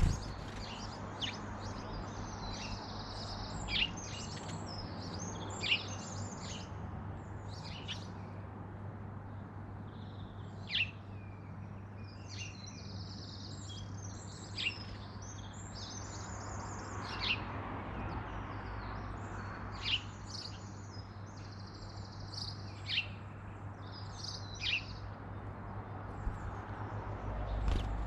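Small garden songbirds calling and singing: sharp falling chip notes every second or two, mixed with bursts of quick high warbling phrases, over a steady low hum.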